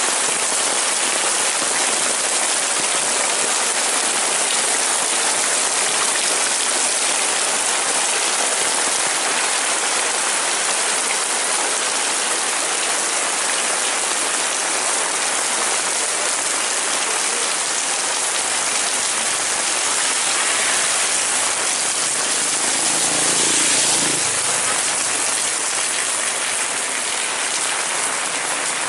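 Heavy rain falling steadily as a dense, even hiss. A brief low rumble swells in about three-quarters of the way through.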